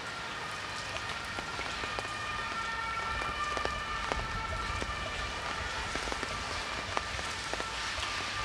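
Rain falling on a city street, a steady hiss with many scattered sharp drop ticks. Through the middle a steady high-pitched tone of several notes at once holds for a few seconds, over a low rumble that swells slightly.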